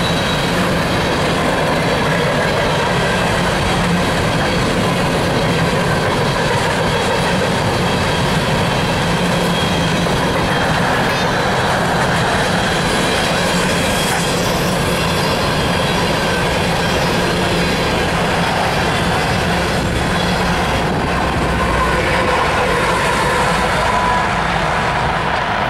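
Empty coal hopper cars rolling past: a steady rumble and rattle of steel wheels on the rails, with thin steady squealing tones above it. Near the end the rear distributed-power locomotive, a GE ES44AC, comes by with its diesel engine running.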